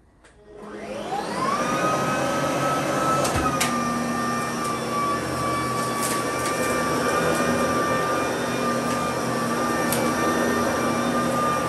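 Sebo BP60 cordless upright vacuum cleaner switched on: its motor whine rises to speed within about a second, then it runs steadily as it is pushed over carpet, with a few sharp ticks.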